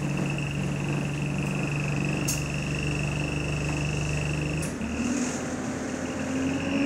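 Bus running, heard from inside the saloon: a steady low hum and a high steady whine that cut off about two-thirds of the way in, giving way to a tone that slowly rises in pitch.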